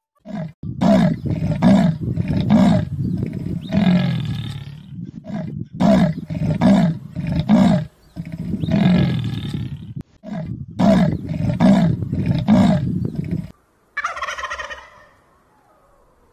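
A cheetah calling in three bouts, each a run of rough pulses ending in a longer drawn-out call. A wild turkey gobbles briefly about 14 seconds in.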